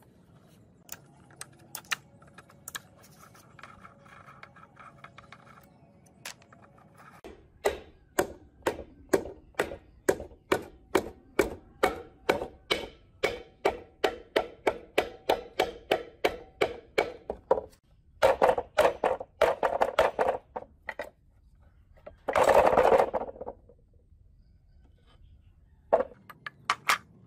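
Metal hand tools working on the opened crankcase of a small 4-stroke water-pump engine: a long run of sharp metallic clicks at about three a second, then a faster run of clicks and a short scraping rasp.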